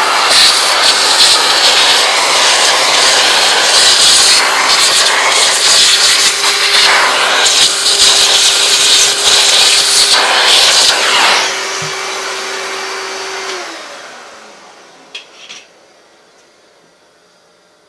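Shop vacuum hose sucking up ABS plastic chips from a CNC router bed: a loud, steady rush with uneven rattle and a steady hum. The rush drops off abruptly about two-thirds through. The hum then falls in pitch and fades as the motor spins down, followed by two light clicks.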